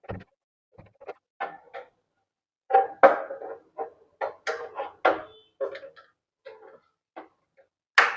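Irregular small clicks, scrapes and knocks of a screwdriver and hard parts as the on/off switch of a wet grinder is screwed into its housing, busiest about three seconds in, with a sharper knock near the end.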